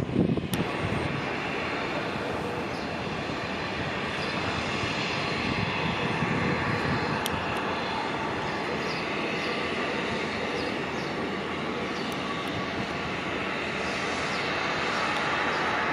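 Steady rushing jet noise from the Bombardier CRJ900's two rear-mounted turbofan engines, heard from a distance across the airfield as the airliner rolls out and taxis after landing. The noise is louder for the first moment, then stays even.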